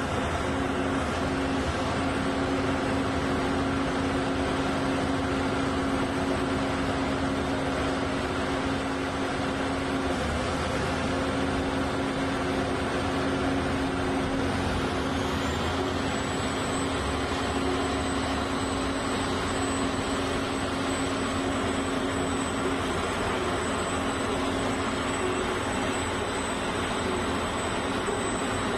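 Tracked rotary piling rig running steadily under load, its diesel engine and hydraulic drive turning a steel casing into wet ground. A steady hum throughout, with a thin high whine that comes in about halfway through.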